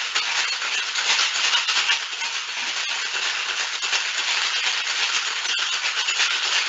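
Ice rattling inside a sealed two-piece steel tin-on-tin cocktail shaker shaken hard, a continuous rapid, even rattle. The ice is whipping up an espresso martini.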